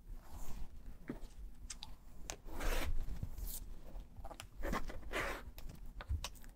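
Rotary cutter blade rolling through cotton fabric along the edge of an acrylic quilting ruler on a cutting mat, trimming a half-square triangle: several short scraping strokes with sharp clicks of the tools being handled between them.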